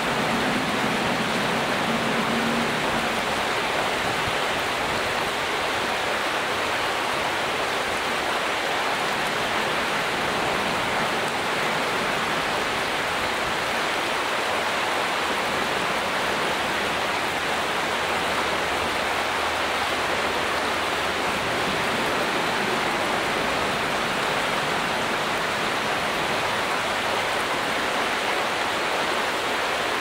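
Shallow stream flowing over a pebbly bed, a steady, even rush of water.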